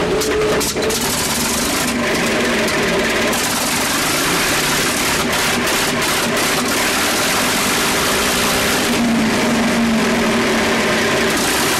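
A piston aircraft engine sound effect running steadily at a low, even throttle, with a few brief clicks.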